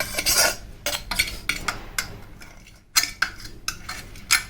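Metal spoon scraping and clinking against the inside of a steel grinder jar, scooping out brick that has been ground to powder. The scrapes and clinks come in short, irregular strokes.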